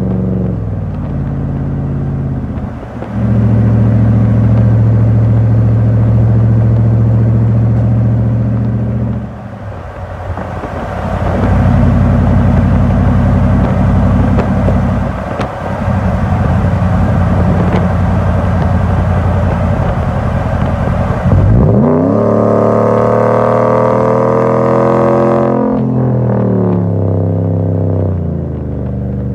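Dodge Ram 1500 V8 through a twin 3-inch exhaust with X-pipe and twin round-body mufflers, driving at road speed: a deep, steady exhaust drone that gets louder under throttle. Near the end the revs climb sharply for a few seconds as it accelerates, then drop back.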